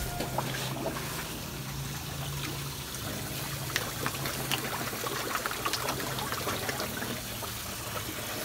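Water trickling and splashing steadily into a tilapia tank, with a steady low hum under it and a few short sharp splashes.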